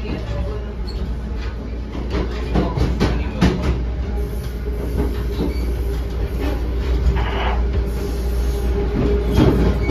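Inside a moving NJ Transit Comet passenger coach: steady low rumble of the car on the track, with irregular clicks and clacks of the wheels over rail joints and switches. A faint steady tone joins about halfway through.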